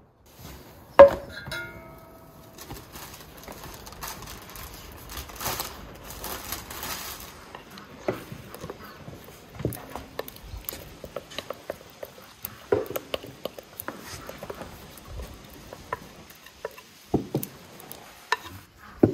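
Kitchen handling sounds: one sharp, ringing clink of a dish or pan about a second in, then scattered light clicks, taps and scrapes of utensils against bowls and pans.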